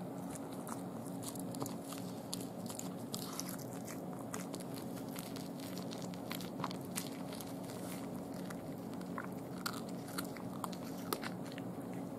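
A cat chewing a raw day-old chick, with many short, irregular crunches as the small bones and feet break between its teeth, the sharpest near the end.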